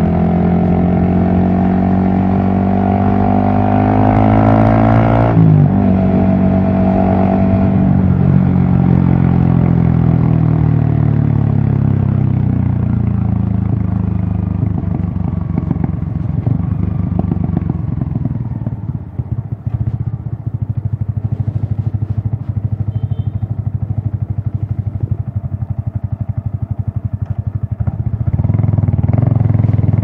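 Yamaha XSR155's single-cylinder engine under way: it revs up under acceleration and drops sharply in pitch about five seconds in as it shifts up. It then winds down slowly with the throttle closed, runs low and uneven for a long stretch, and picks up again near the end.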